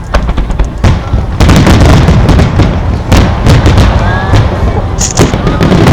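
Fireworks finale barrage: rapid, overlapping booms and crackling bursts over a continuous low rumble, turning denser and louder about a second and a half in.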